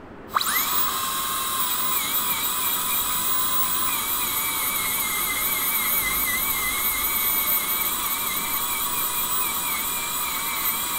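High-speed dental air-turbine handpiece spins up a moment in and runs with a steady high whine whose pitch wavers slightly. A diamond bur is grinding down a fresh composite filling to lower it out of the bite.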